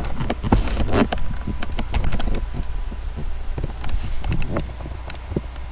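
Handling noise from a longboard being moved about right next to the microphone: a run of irregular knocks, bumps and scrapes over a steady low hum.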